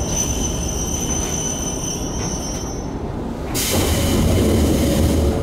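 Izuhakone Railway 5000-series electric train squealing with a steady high ring as it brakes to a stop, then about three and a half seconds in a sudden loud hiss of air over a low rumble, the sound of air brakes venting once the train stands still.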